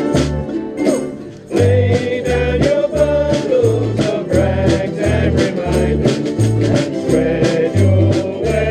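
A ukulele group playing a song together: many ukuleles strummed in a steady rhythm over regular low bass notes, with a melody line on top. The music drops back briefly about a second in.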